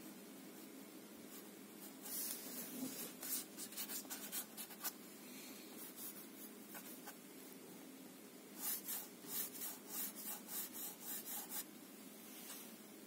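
A fine-tipped drawing tool scratching quick short strokes on watercolor paper, in two runs of a few seconds each at about four strokes a second.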